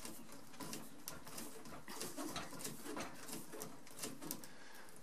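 Faint creaking and scattered clicks of a screw being tightened through a dishwasher mounting bracket into a hard oak cupboard face, the screw biting stiffly even with a pilot hole.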